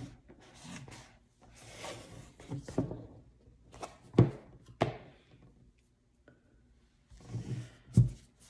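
An iPad in a folding cover case being handled: the cover rubs and rustles, with sharp clicks and knocks twice around four to five seconds in. The loudest knock comes near the end, as the iPad is set down flat on the table with the cover closed.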